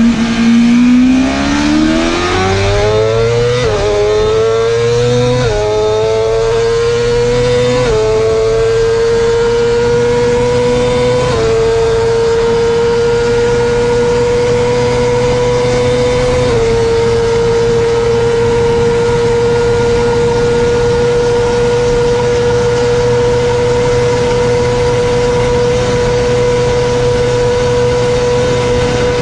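The 999 cc inline-four of a tuned BMW S1000RR (full bolt-on, ECU flash) at full throttle, heard from the rider's seat. The revs climb through five quick upshifts over the first seventeen seconds or so, then hold a steady high note in top gear as the bike runs at about 350 km/h.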